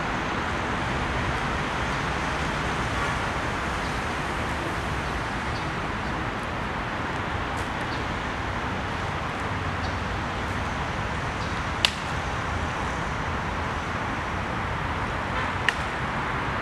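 Steady traffic noise, with two sharp clacks of training kriegsmesser blades striking each other, about twelve seconds in and again near the end.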